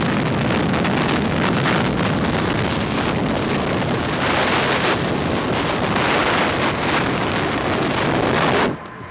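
Wind buffeting the camera's built-in microphone in a car moving at highway speed: a loud, steady rush of noise that cuts off suddenly near the end.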